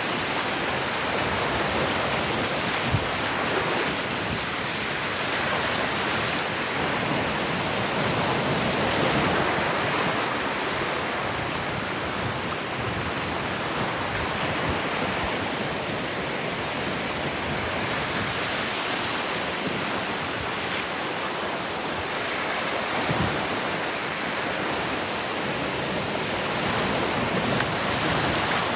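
Ocean surf washing ashore, a steady rush that swells and eases gently in level, with some wind on the microphone.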